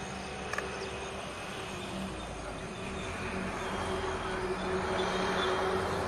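Steady outdoor rushing noise with a faint low hum under it, growing a little louder in the second half.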